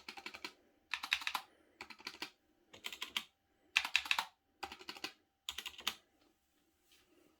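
Backspace key on a Razer Huntsman Tournament Edition keyboard with optical linear switches, pressed in quick flurries of several clacks, about once a second, seven times. The flurries stop about six seconds in. The keyboard is described as much louder.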